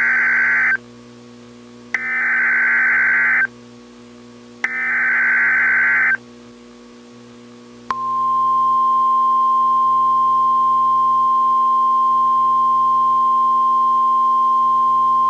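Emergency Alert System header: three harsh digital data bursts, each about a second and a half long, like a modem screech. From about eight seconds in comes a single steady high alarm tone, the NOAA Weather Radio-style warning tone that announces a tornado warning. A faint low hum runs under it all.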